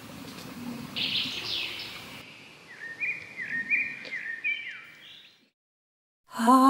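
Wild songbirds singing over quiet outdoor ambience: a burst of quick falling chirps about a second in, then a run of short repeated notes that jump up and down in pitch. The sound drops out briefly and music with held notes begins near the end.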